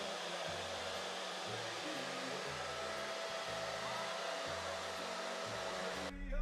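The fan of a 12 V PTC car heater blowing hot air, a steady rushing noise, running fast on the full output of three solar panels. It cuts off suddenly near the end.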